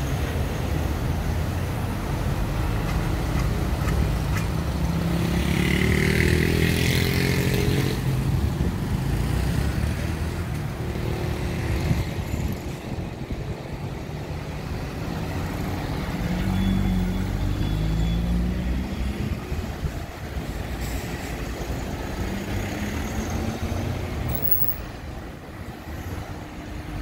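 Road traffic at a street junction: a steady rumble of passing cars, with engines rising in pitch as vehicles accelerate away, three times over, the loudest about five to eight seconds in.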